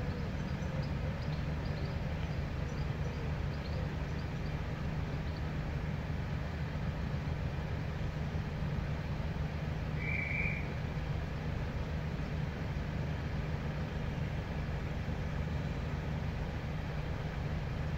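Steady low rumble with no change in level, with faint high chirps in the first few seconds and one short high whistle about ten seconds in.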